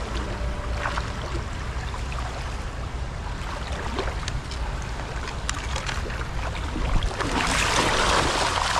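Steady low wind rumble on the microphone over shallow river water, with small knocks of a landing net being handled. Near the end the net is plunged through the water by the bank, splashing for a couple of seconds.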